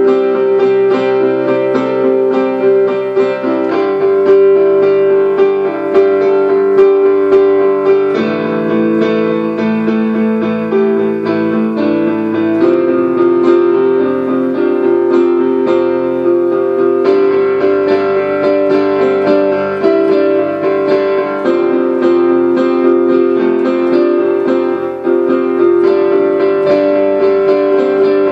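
Piano improvisation: quick, flowing repeated notes over sustained chords that change about every four seconds.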